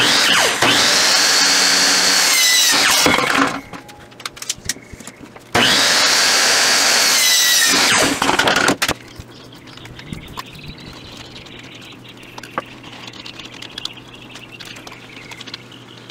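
An electric miter saw cuts through PVC pipe twice. Each time the motor spins up, the blade cuts loudly through the plastic for about three seconds, and the motor winds down with a falling whine. Quieter light knocks follow.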